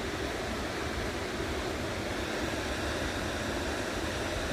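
Steady rush of flowing water from a stream, with a low rumble underneath.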